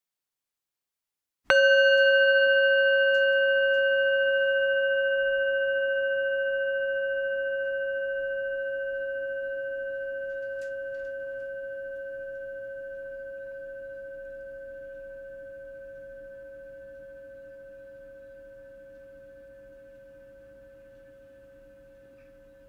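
A singing bowl struck once, about a second and a half in, ringing with a clear low tone and higher overtones that fade slowly and evenly. It marks the close of the meditation.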